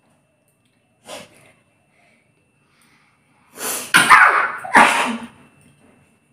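A person sneezing twice in quick succession, the first after a sharp intake of breath.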